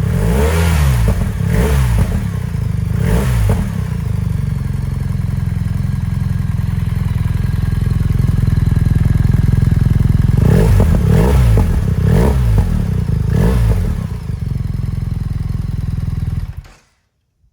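BMW R1300 GS boxer-twin engine idling through an Akrapovic double-barrel exhaust with the dB killer removed and the exhaust valve held open by a Servo Buddy, blipped several times in two sets: a deep, raspy growl with a little popping. The sound cuts off suddenly near the end.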